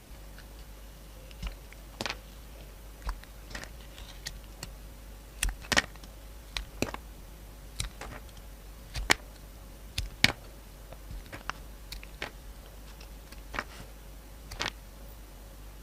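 A blade cutting through bar soap: a series of crisp clicks and snaps, unevenly spaced at roughly one or two a second, some coming in quick pairs. A low steady hum runs underneath.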